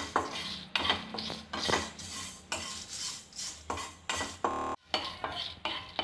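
Spatula scraping and stirring dried red chillies and cumin seeds around a dry nonstick kadai, in quick strokes about twice a second, as the spices dry-roast without oil.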